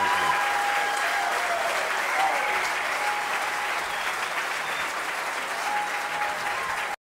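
Concert audience applauding steadily after a song; the applause cuts off abruptly at the very end.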